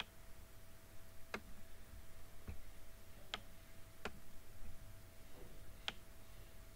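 Computer mouse clicking, about six single sharp clicks spaced roughly a second apart, over a faint steady electrical hum.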